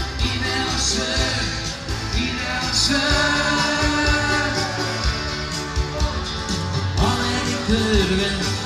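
Live band playing dance music on electric keyboard and guitar over a steady beat, with a singer's voice.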